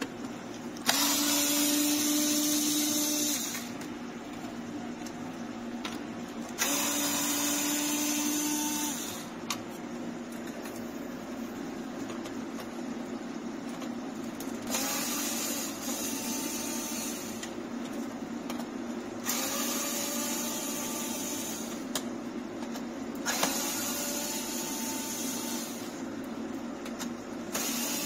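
Cordless electric screwdriver running in five short bursts of about two to three seconds each, its motor whining steadily while it turns screws in the truck's plastic dash bezel. The first two bursts are lower in pitch than the last three.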